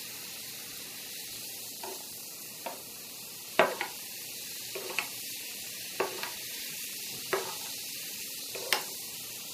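A glass of water fizzing with a steady high hiss as baking soda and citric acid react in it, while a metal teaspoon stirs and clinks against the glass every second or so.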